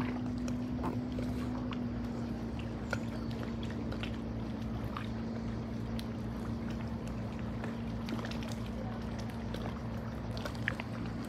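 A steady low mechanical hum from a motor, its pitch sinking slightly over the first few seconds and then holding, with faint scattered clicks over it.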